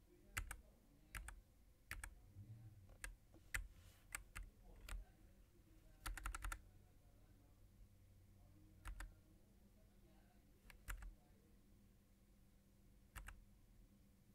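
Scattered single keystrokes on a Nuphy Air96 low-profile keyboard with Gateron 2.0 brown switches and double-shot PBT keycaps. About a dozen presses at uneven gaps, each a short click, with a quick run of several keys about six seconds in.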